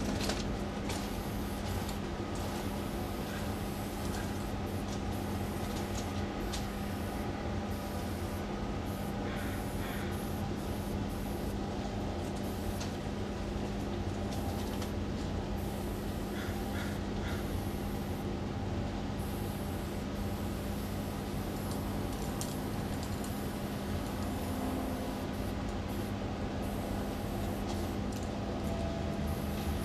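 Steady rail-yard background with a constant low mechanical hum, and faint short hisses of aerosol spray paint now and then as a piece is painted on a freight car.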